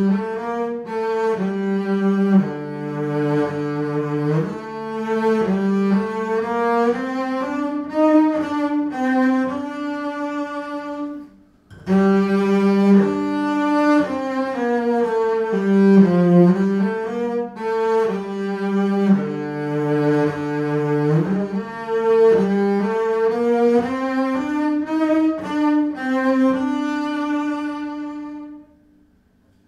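Double bass played with the bow: a passage of sustained, connected notes moving from pitch to pitch, with a brief pause partway through, then ending on a long held note.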